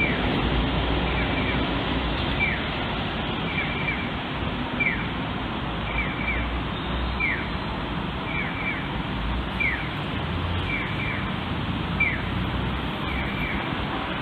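Steady rushing noise from a jet high overhead, with a bird's short falling chirp repeated about once a second, often two or three in quick succession.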